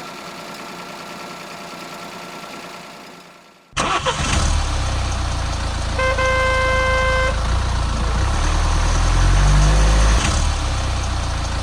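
A vehicle engine rumbles loudly, cutting in suddenly about four seconds in after a quieter, fading stretch. A horn honks once, held for about a second, in the middle.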